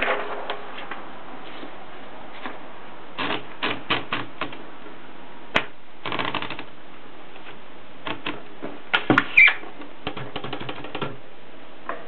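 Continental typewriter's mechanism clicking and clacking in scattered bursts as a sheet of paper is rolled in. The loudest clacks come about nine seconds in.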